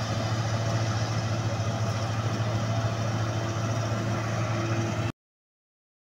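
Laverda combine harvester running steadily with a low hum as it works a wheat field at night, until the sound cuts off abruptly about five seconds in.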